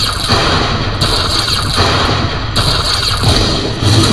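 Lightning Link slot machine playing its electronic game sounds, in sections that switch abruptly about every second, over the din of the casino floor.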